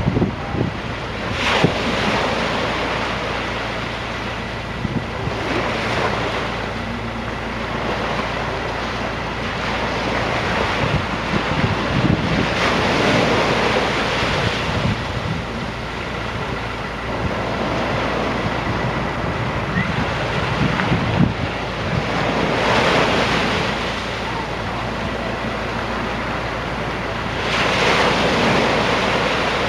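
Small waves breaking and washing over a slipway, surging about five times, with wind buffeting the microphone. A steady low engine hum runs underneath.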